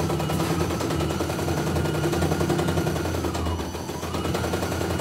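CNY E900 computerized embroidery machine stitching: a fast, even rattle of needle strokes over the motor's whine. The whine dips in pitch and comes back up about three and a half seconds in.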